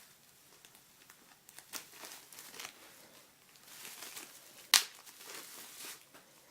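Bubble wrap crinkling and rustling as ferrets move over it, with one sharp pop a little under five seconds in.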